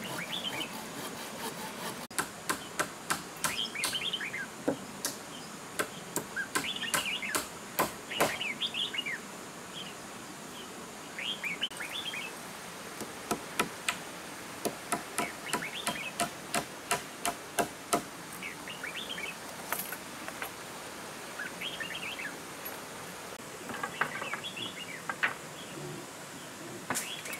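Birds chirping over a steady high insect drone, with runs of sharp knocks through most of the first two-thirds, from wooden poles being struck while a pole-frame shelter is built.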